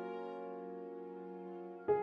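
Background music: a held piano chord slowly fading, with a new chord struck near the end.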